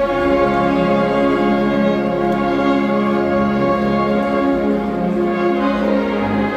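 Oaxacan Sierra Mixe philharmonic wind band, brass and woodwinds, playing a slow passage of long held chords.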